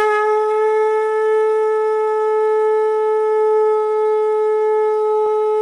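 One long held note from a wind-instrument sound opening a Maithili devi geet track, steady in pitch without wavering.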